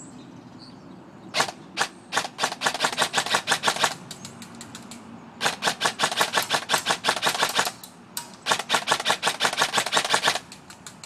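VFC M4 airsoft electric gun with a BTC Chimera MOSFET fired semi-automatic, active brake off: rapid single trigger pulls at about five shots a second, each a sharp snap of the gearbox cycling and the piston firing. The shots come in three strings with short pauses between them.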